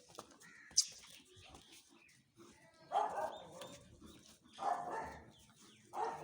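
Animal calls: three short cries with clear pitch, a second or more apart, after a sharp click.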